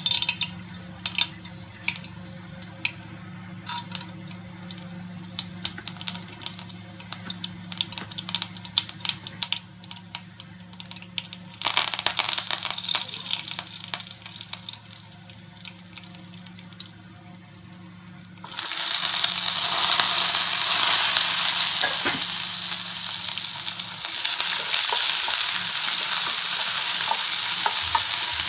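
Mustard seeds popping and crackling in hot oil in an aluminium kadai, a tempering. A little before halfway a burst of sizzling as dal and curry leaves go in; about two-thirds in, sliced onions hit the oil and a loud, steady sizzle follows as they are stirred with a wooden spatula.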